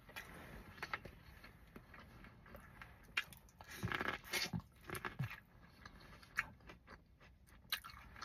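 A person biting into and chewing a sauced ear of corn on the cob: scattered small bites, wet mouth clicks and chewing, busiest around four to five seconds in, with a couple of brief low hummed sounds there.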